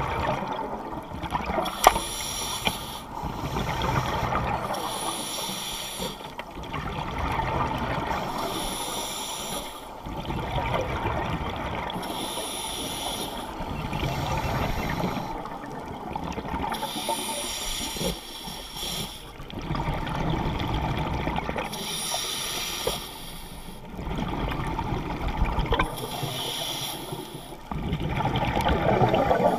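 Scuba diver breathing through a regulator underwater: a hiss alternating with a rush of bubbles, repeating every two to three seconds.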